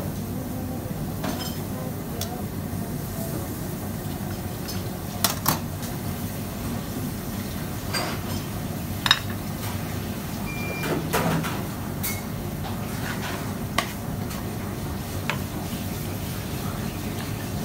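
Steady low background rumble with scattered sharp clinks and knocks of crockery and metal utensils during plating, the sharpest about nine seconds in.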